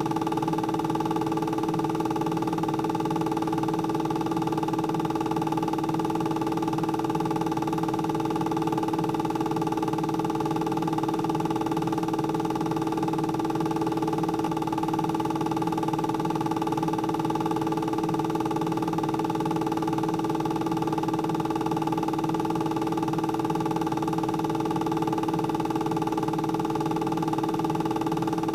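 A steady electronic hum of several held tones, unchanging throughout, over a faint even hiss.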